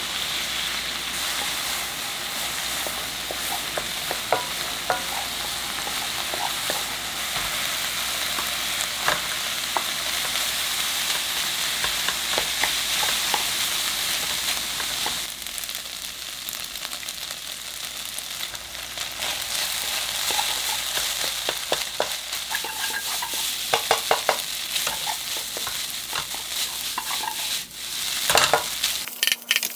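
Pork fried rice sizzling in a hot frying pan as it is stir-fried: a steady hiss with a spatula clacking and scraping against the pan now and then, the clacks coming thicker and louder in the last third.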